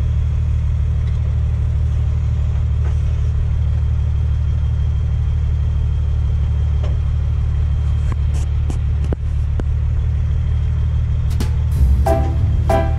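Grapple crane truck's diesel engine running steadily, driving the crane's hydraulics, with a few sharp knocks as the grapple works about seven to ten seconds in. Music with a steady beat comes in near the end.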